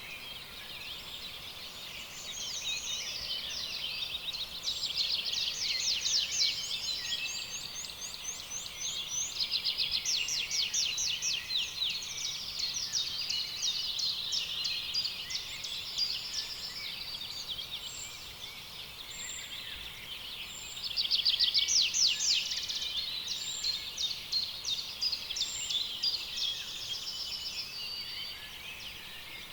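Several songbirds singing at once in a spring forest chorus, with rapid overlapping chirps and trills that swell louder about five, ten and twenty-one seconds in.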